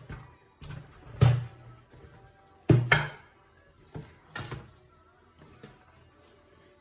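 Olivetti Lettera 32 manual typewriter being handled, giving irregular single mechanical clacks and thunks, the two loudest about a second and almost three seconds in. Faint background music underneath.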